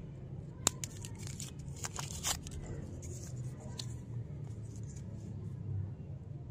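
Lollipop's paper wrapper crinkling and tearing as it is peeled off by hand, a quick run of crackles in the first two seconds or so, then quieter rustling of the paper tattoo sheet taken from inside. A steady low hum sits underneath.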